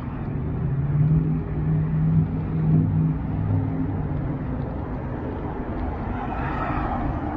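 Street traffic: a motor vehicle's engine hum, loudest for a couple of seconds about a second in, then fading into a steady background of city traffic noise.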